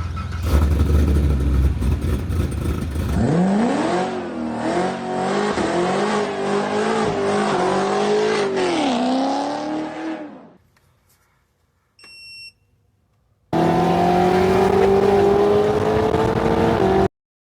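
Car engine revving in a series of edited clips with abrupt cuts. The first clip is rough noise; the second swings up and down in pitch under throttle; after a brief beep, the engine holds a steady, slowly rising note and then cuts off suddenly.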